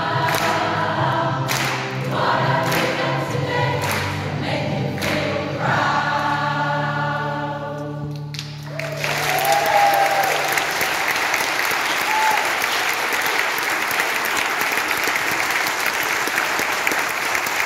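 Community choir singing in harmony, with sharp rhythmic claps, ending on a long held chord that cuts off about eight and a half seconds in. The audience then breaks into steady applause, with a couple of whoops.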